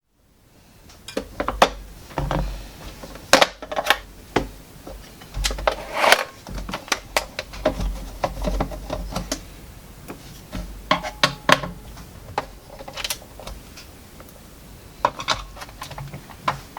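Irregular clicks, taps and clatter of the plastic case of a Yamaha PortaSound PSS-30 keyboard being handled and taken apart, with a few louder knocks.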